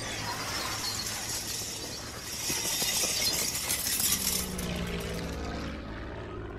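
Film soundtrack with a high, glassy tinkling shimmer over a low steady hum. The shimmer swells about two seconds in and fades away near the end.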